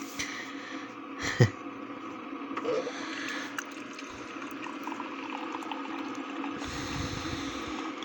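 Keurig single-serve coffee maker dispensing hot water into a glass mug: a steady pour and machine hum that grows louder after a couple of seconds and again near the end. A short sharp sound stands out about a second and a half in.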